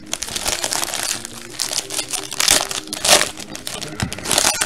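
Foil wrapper of a trading-card pack crinkling in irregular bursts as hands work it open, with the loudest crackles about two and a half and three seconds in.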